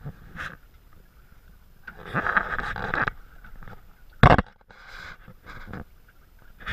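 Scattered knocks, clicks and scraping around a homemade wire-mesh fish trap holding freshly caught fish on a wooden deck, with one sharp loud knock a little after four seconds in.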